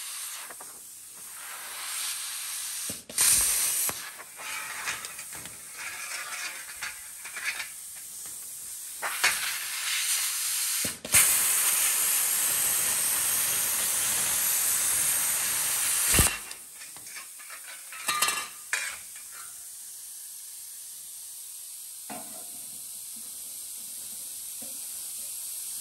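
Hand-held plasma cutter slicing through a rusty sheet-steel air-cleaner base, hissing. It starts with several short stop-start cuts, then makes one continuous, louder cut of about five seconds that stops abruptly. A couple of brief bursts follow shortly after.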